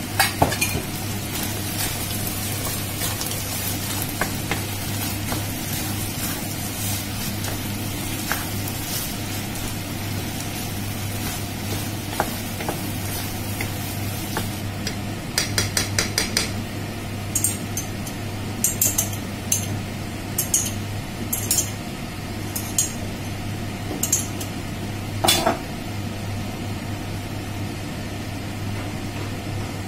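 Minced lamb and diced vegetables sizzling in a nonstick frying pan while a wooden spatula stirs and scrapes them. From about halfway through, a metal spoon clinks sharply against the spatula and pan a dozen or so times. A steady low hum runs underneath.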